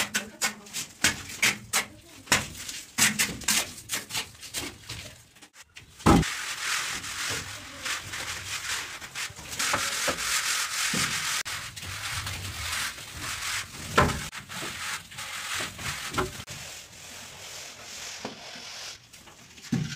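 Plastering tools scraping and rubbing over cement plaster on a ceiling. Short, quick separate strokes come first; then a sharp knock about six seconds in, followed by long, almost unbroken rubbing with a few knocks, easing near the end.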